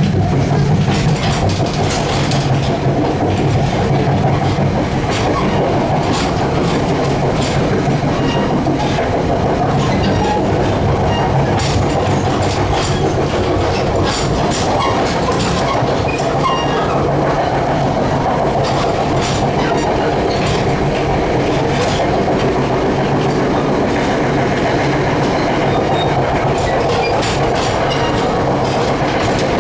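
Passenger train running steadily along the track, heard from on board: a continuous rumble with irregular clicks of the wheels passing over rail joints.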